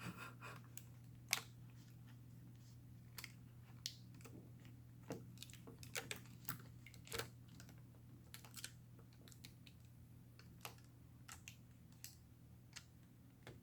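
Faint, irregular light clicks and taps of hands and a tool working on an open MacBook Pro while the replacement battery is pushed into position, over a steady low hum.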